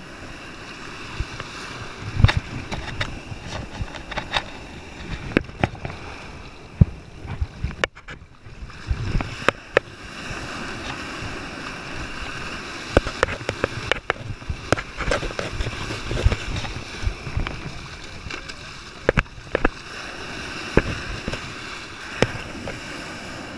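Shallow surf washing and splashing at the water's edge, with scattered sharp knocks and low thumps.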